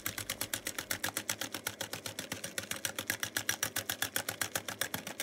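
Wire balloon whisk beating whipping cream by hand in a ceramic bowl, its wires clicking against the bowl in a steady fast rhythm of about ten strokes a second.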